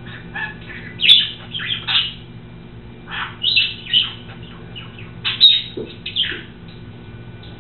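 A bird chirping and squawking in quick clusters of short calls, over a steady low hum.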